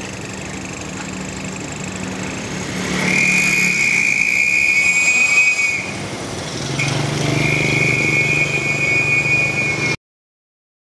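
Minibus exhaust whistle, a small pipe fitted at the muffler outlet, sounding a steady high whistle twice, each lasting about three seconds, as the engine is given throttle, with the engine running underneath. The sound cuts off suddenly about ten seconds in.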